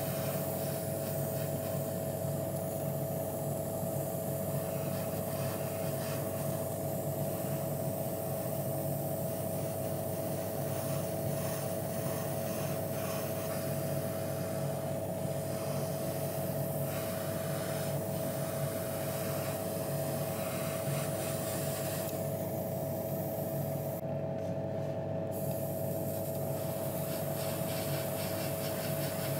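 Airbrush hissing as it sprays paint onto a small diecast metal part, over the steady hum of the air compressor that feeds it. The hiss lets up briefly about three-quarters of the way through.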